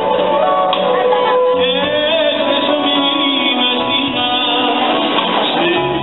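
Live band music with a man singing over drums, the sung notes bending and gliding in pitch.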